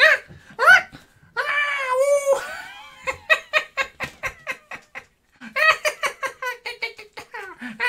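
A man laughing hard in rapid repeated bursts. The laughter comes after a long, wavering vocal cry about a second and a half in.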